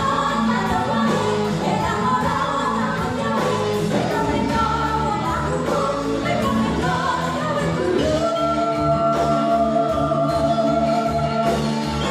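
A modern gamelan band playing live: women singing together over gamelan, electric guitar and drum kit. About eight seconds in, the voices hold a long note over a steady low beat.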